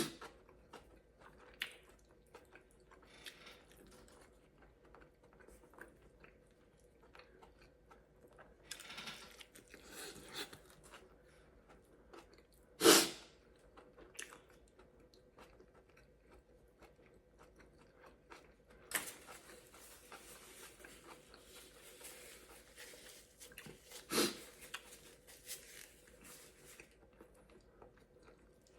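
Close-miked chewing and biting of food, soft and intermittent, with a sharp louder crunch about thirteen seconds in and another shorter one near twenty-four seconds.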